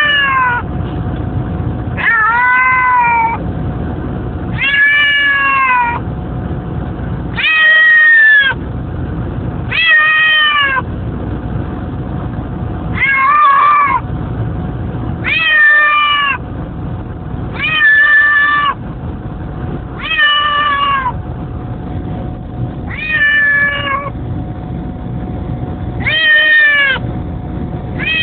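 Cat meowing over and over in a moving car, one long downward-bending meow about every two and a half seconds, in distress at the car ride. The car's low road rumble runs underneath.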